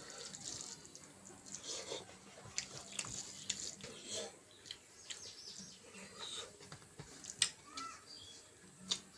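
A person eating chicken and rice, wet chewing and lip smacks with irregular small clicks.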